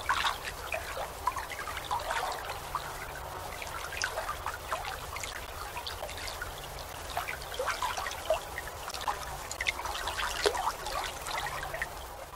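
Water splashing and trickling in many small, irregular splashes over a low, steady rumble.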